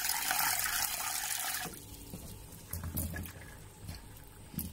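Tap water running into a plastic bowl of tarap seeds in a stainless steel sink, cutting off about a second and a half in. After that, fainter wet rubbing and sloshing as a hand scrubs the seeds in the bowl.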